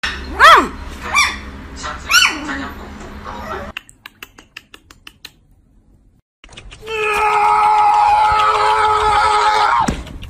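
A puppy gives three short, high yelps, each rising and falling in pitch. After a quiet stretch with faint ticks, a long, steady, high squeal holds for about three seconds and drops sharply at the end.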